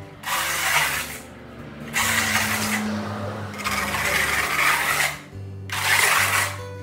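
Putty knife scraping putty across a rough concrete wall in four long strokes, over background music with low held notes that shift in steps.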